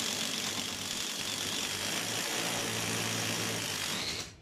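Cordless drill running steadily under load as it drives a 10 mm combination drill-tap into pre-drilled half-inch steel plate, cutting the thread easily; the motor stops about four seconds in.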